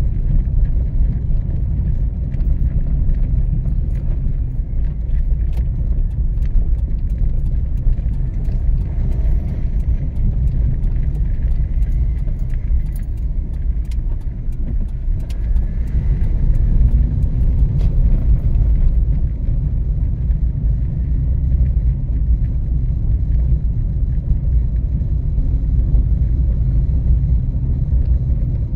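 Car driving, a steady low road and engine rumble throughout, with light irregular clicks and rattles from about four seconds in until about nineteen seconds in.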